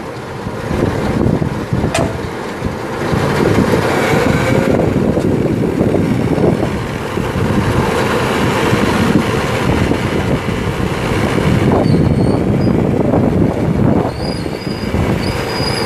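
Truck-mounted Auto Crane run from its pendant control: a steady mechanical running noise as the winch reels in, with thin high squeals in the last few seconds.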